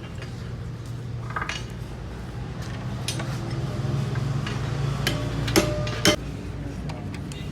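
Metal parts and tools clinking and tapping during work on a Hino truck gearbox, with two loud, ringing metal strikes about half a second apart near the end. A steady low hum runs underneath.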